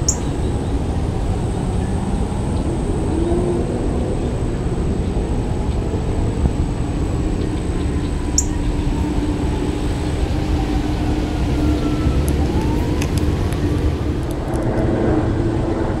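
Steady low rumble of distant engine noise, with a droning tone and slow rising and falling glides. Two short, sharp high chips come through, one at the start and one about halfway.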